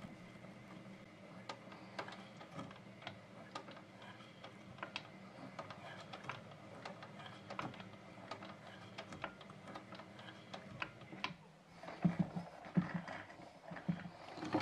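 Techsew roller-foot leather sewing machine stitching a leather shoe upper at slow speed: a low motor hum under irregular needle ticks. After a short pause about eleven seconds in, a few louder, lower knocking strokes.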